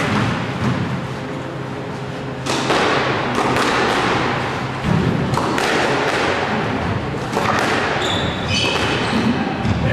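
Squash rally: the ball struck by racquets and smacking off the court walls, a hard knock every one to two seconds, each echoing around the court. A shoe squeaks on the court floor near the end.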